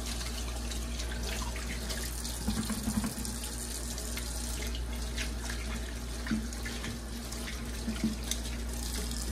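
Kitchen faucet running steadily into a stainless steel sink as hands are washed under the stream.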